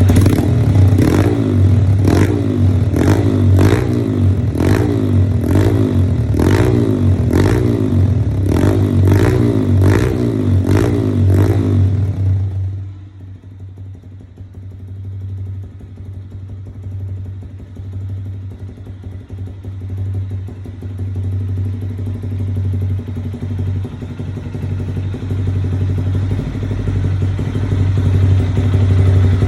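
Motorcycle engine through a Taro GP V3 aftermarket exhaust, the throttle blipped in quick repeated revs, about one and a half a second. About halfway through it drops suddenly to a steady idle that grows slowly louder toward the end.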